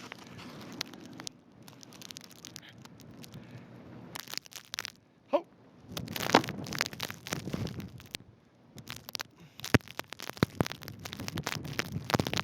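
Footsteps crunching irregularly through fresh snow, with gusty blizzard wind buffeting the microphone.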